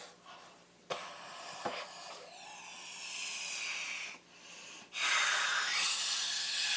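Slime being squeezed and worked by hand, with air hissing and squelching out of it: a long hiss with whistly falling squeaks, a short lull, then a louder hiss near the end.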